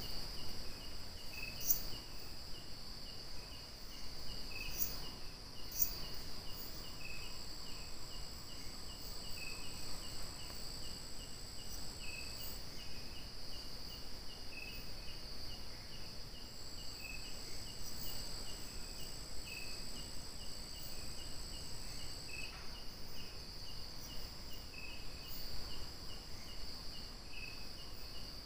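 Night insect chorus of crickets: a steady high trill, with a second insect chirping at an even pace beneath it. A thin, higher whine joins in twice for several seconds, and a few faint ticks come near the start.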